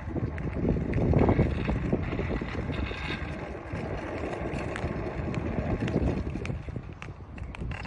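Wind buffeting the microphone: an uneven, gusting low rumble that rises and falls throughout.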